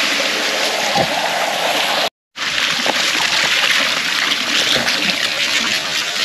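Steady splashing and rushing of water falling from a pool's rock waterfall into the pool. The sound cuts out briefly about two seconds in, then carries on.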